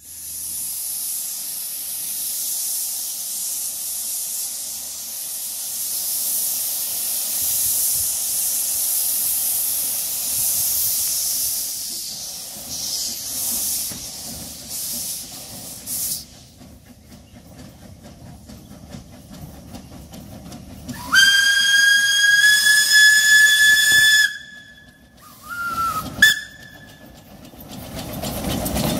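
Narrow-gauge steam locomotive: a loud hiss of escaping steam for the first half, then its whistle sounds one long blast of about three seconds followed by two short toots as the engine draws near.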